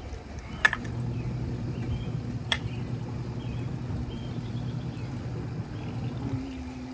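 Portable twin-tub washing machine's electric motor humming steadily, starting just after a sharp click, with a second click a couple of seconds later; near the end the hum shifts to a slightly higher tone. Birds chirp faintly.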